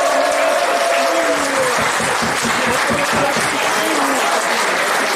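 Spectators at a football ground clapping steadily, with a drawn-out shout over the first second or so.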